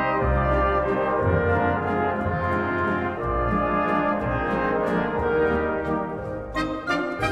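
Orchestral classical music led by brass, playing sustained chords over low bass notes; a brighter, fuller passage comes in near the end.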